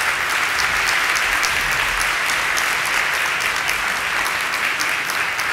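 Audience applauding steadily in a large hall after a speech, many hands clapping at once.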